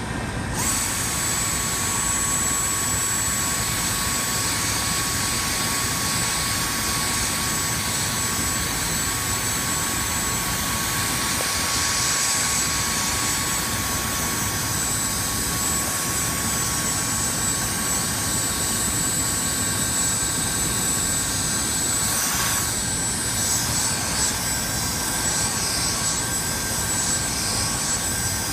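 Portable vacuum running steadily with a high motor whine and rushing air through its brush nozzle, the hiss shifting as the nozzle is worked over a fine wire-mesh filter screen.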